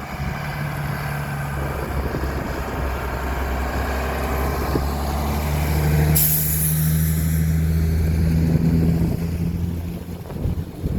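Fire truck's diesel engine running as it drives past, building and then fading away, with a sharp air-brake hiss about six seconds in.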